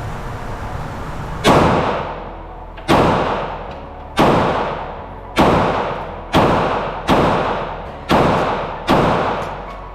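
Eight 9mm pistol shots from a Glock 48, each a sharp crack trailing off in a long echo. They are fired singly at first and then as two quick double taps near the end.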